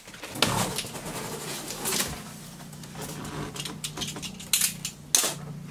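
Correios cardboard shipping box being torn open by hand along its opening edge and the lid folded back. Irregular scraping, tearing and creaking of cardboard, with a few sharper rips.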